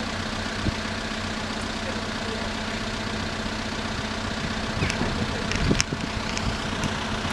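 Diesel engine idling steadily with a low hum, with a few short knocks and rattles about five to six seconds in.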